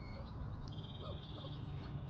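Wild birds calling: a short whistled note right at the start, then a fast, even trill lasting under a second, over a steady low rumble.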